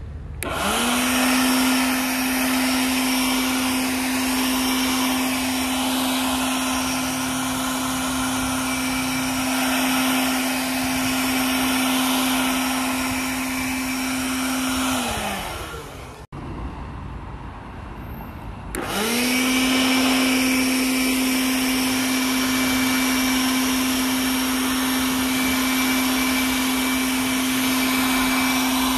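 Einhell TE-CB 18/180 Li cordless blower spinning up and running at a steady whine with a rush of air as it blows water off car paint. About halfway through it winds down, and after a couple of seconds it spins up again and runs steadily.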